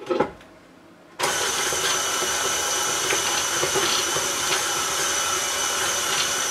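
KitchenAid Classic stand mixer switched on about a second in, its motor running steadily with a high whine as the flat beater stirs butter and caramel syrup in the steel bowl. Just before it starts, a couple of clicks of the spatula against the bowl.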